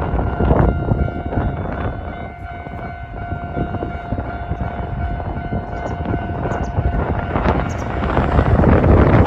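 Strong wind buffeting the microphone. A steady pitched tone with overtones sounds from about half a second in and stops about seven seconds in.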